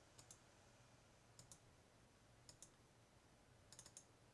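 Faint computer mouse clicks, each a quick press-and-release pair, placing the points of a measurement line on a map. There are three separate clicks, then a quicker run of clicks near the end, matching the double-click that finishes the line.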